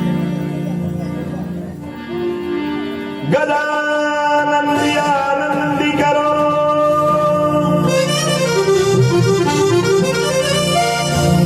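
Instrumental introduction to a devotional bhajan: a reedy keyboard melody, harmonium-like, over a steady low drone, growing louder and fuller about three seconds in.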